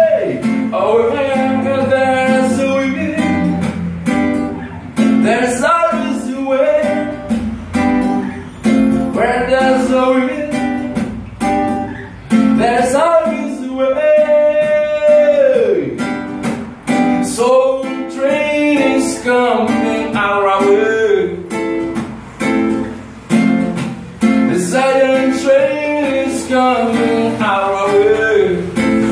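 A man singing while strumming a steady rhythm on a nylon-string classical guitar. About halfway through he holds one long note that falls away at its end.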